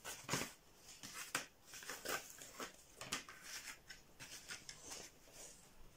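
Cardboard pieces and a hot glue gun being handled on a tabletop: faint, scattered rustles and light taps at uneven intervals.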